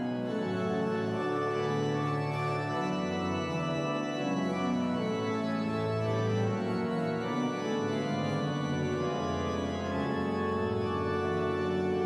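Church organ playing slow, sustained chords, a closing voluntary at the end of the service.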